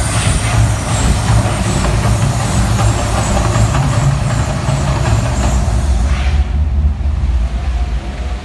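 Mirage volcano show eruption effect: a deep, loud rumble under a rushing hiss. The hiss drops away about six and a half seconds in, while the rumble goes on.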